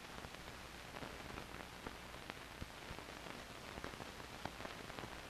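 Faint steady hiss with scattered small clicks and crackles: the surface noise of an old 16mm film soundtrack, with no engine or train sound to be heard.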